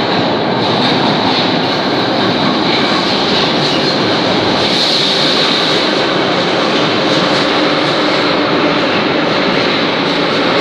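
81-717.5M/714.5M metro train pulling into an underground station and running past the platform: a loud, steady rumble, with a higher sound that swells about halfway through.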